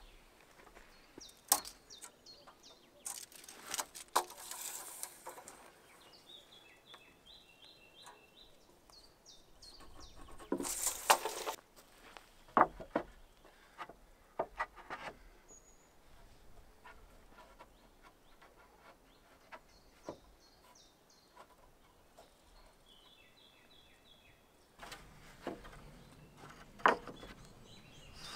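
A small bird calling with short series of rapid repeated notes, about seven seconds in and again near twenty-four seconds, with a few higher chirps in between. Scattered knocks and rustles also sound, the loudest a brief rustling burst about eleven seconds in.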